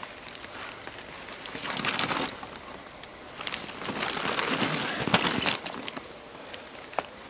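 Rustling and shuffling of clothing and gear as a person moves and handles a hatchet in its leather sheath. It comes in two spells, the second longer, with a few sharp knocks.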